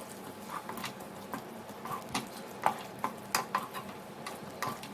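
A cooking utensil stirring chopped tomatoes into an onion-and-spice masala frying in a pan: irregular scrapes and clicks against the pan over a light sizzle.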